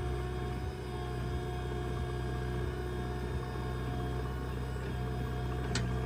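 JCB 3DX backhoe loader's four-cylinder diesel engine running steadily under load as the backhoe arm digs, lifts and swings its bucket of soil, with a steady whine over the engine. A sharp click near the end.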